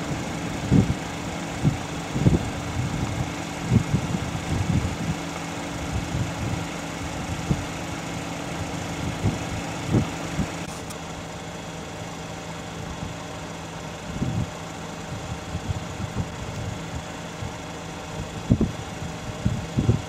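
Vehicle engine idling with a steady hum, with short low thumps on and off, most of them in the first half. About halfway through, part of the steady hum changes.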